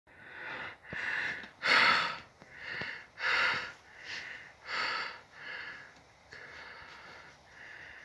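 A person's breathing and sniffing close to the microphone: a run of noisy breaths about one a second, loudest in the first five seconds and softer toward the end. Two faint clicks come in the first three seconds.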